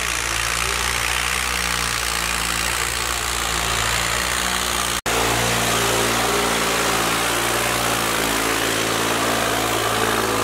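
Tractor diesel engine running steadily under heavy load as it drags a disc harrow through ploughed soil. The sound cuts out for an instant about five seconds in.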